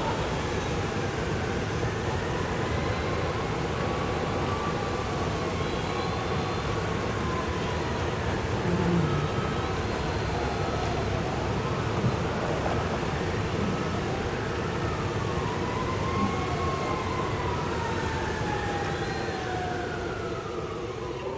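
Motors of radio-controlled construction models working over a steady hum. Several overlapping whines glide slowly up and down in pitch as the machines are throttled.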